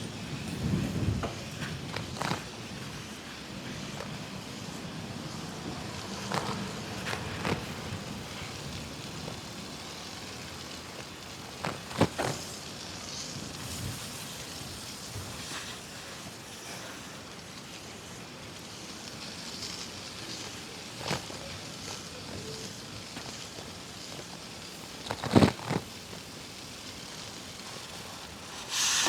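Bicycle riding on a snowy, icy city street: a steady rush of wind and tyre noise, with a few sharp knocks, the loudest about twelve seconds in and again near the end.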